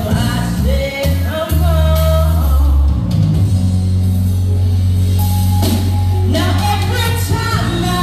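A woman sings live into a microphone over loud backing music with heavy, sustained bass notes.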